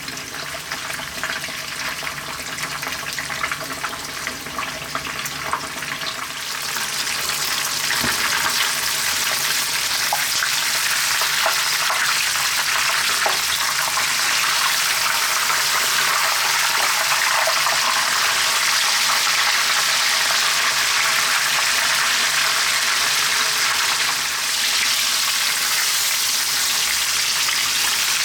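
Whole tilapia frying in hot oil in a pan: a steady sizzle that grows louder about seven seconds in.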